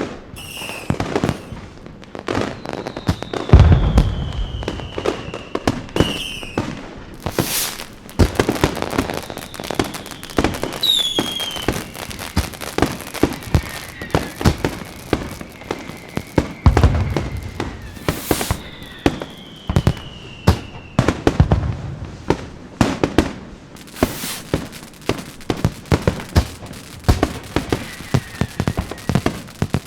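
Fireworks going off: dense crackling pops throughout, two deep booms about 4 s and 17 s in, and several whistles gliding down in pitch.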